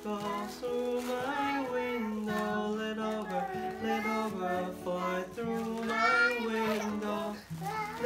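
A young child singing a simple children's song to a strummed steel-string acoustic guitar.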